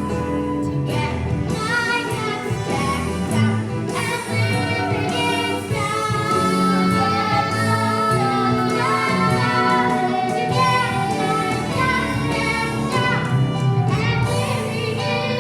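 A song from a stage musical: singing with instrumental accompaniment, continuous and steady in level.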